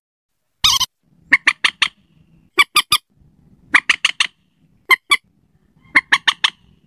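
Common moorhen calling: quick runs of three or four short, sharp notes, repeated about once a second, with one longer, harsher call near the start.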